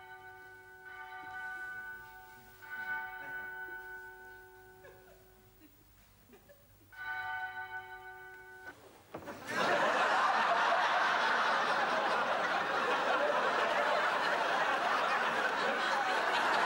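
Short held chords of church-organ-like music, three times with pauses between, then, about halfway through, a studio audience breaking into loud laughter and applause that carries on to the end.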